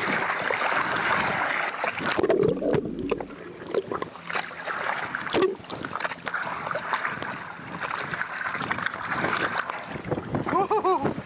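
Water splashing and churning at the surface as a large tawny nurse shark thrashes while being hauled on a rope, with irregular splashes and slaps of water against the camera.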